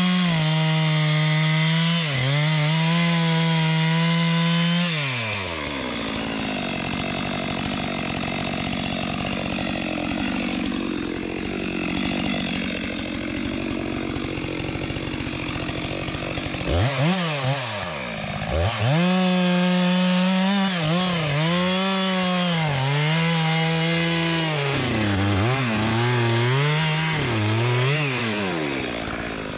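Two-stroke chainsaw held at high revs, then dropping to idle for about twelve seconds. It is revved back up and run at high revs again, the pitch dipping and recovering several times.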